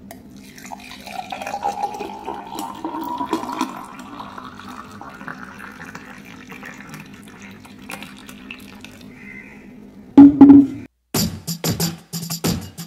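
Watermelon juice being poured into a glass, the pitch of the pour rising as the glass fills. About ten seconds in come two loud knocks, then music with a drum beat starts.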